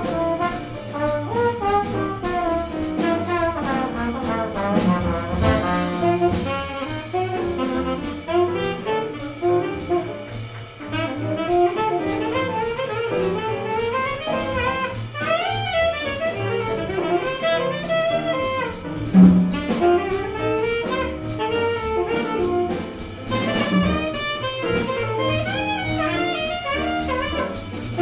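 Jazz combo playing live: grand piano, upright double bass and drum kit, with a melody line weaving over a steady walking bass.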